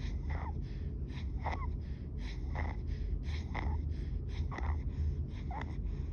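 A baby's inspiratory stridor: a harsh, pitched noise on each breath in, about six breaths in quick succession, roughly one a second, over a steady low hum. The stridor is a sign that the baby is struggling to breathe.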